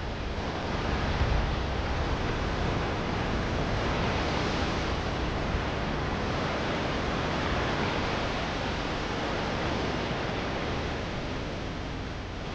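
Steady rush of ocean surf and wind on a beach, an even noise with no distinct calls or knocks.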